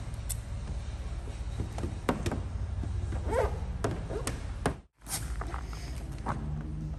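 Scattered light taps, clicks and rubs from hands and tools working paint protection film over a steady low hum. The sound drops out completely for a moment just before five seconds in.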